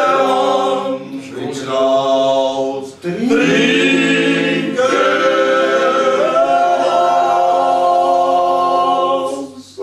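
A group of men singing a drinking toast together in close harmony without instruments, in a few short phrases and then one long held chord of about four seconds.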